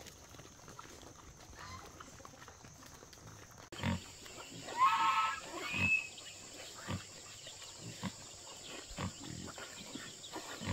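Pigs grunting in short low grunts about once a second, with one short high squeal about five seconds in.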